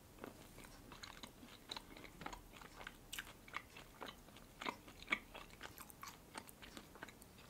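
Close-miked chewing of a bread sandwich topped with red salmon caviar: faint, irregular wet mouth clicks and small pops.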